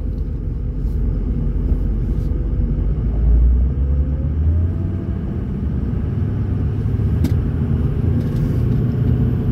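2007 Ford F-350's 6.0-litre Powerstroke V8 turbo-diesel pulling away, heard from inside the cab as a steady low rumble with road noise. A single sharp click about seven seconds in, and a faint high whistle that comes in toward the end as boost builds.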